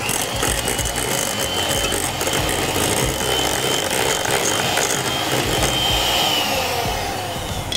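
Electric hand mixer running, its twin beaters working thick choux pastry dough in a stainless steel bowl. The motor gives a steady whine that drops slightly in pitch near the end.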